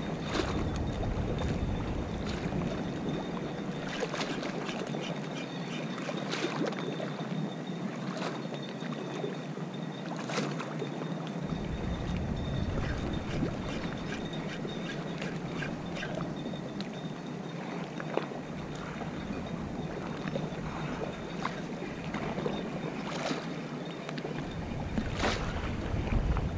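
Gusty wind and choppy water lapping and slapping at the canal bank, with scattered sharp slaps.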